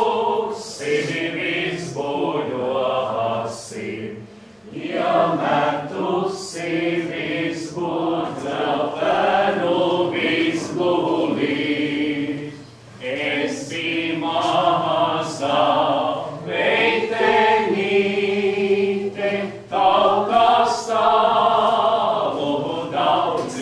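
A group of voices singing a Latvian folk song together in a plain, chant-like style, phrase after phrase, with brief breaths between phrases.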